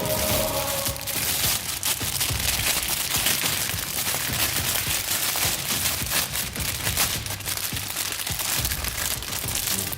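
Dense crackling and crinkling noise made of many small, irregular clicks.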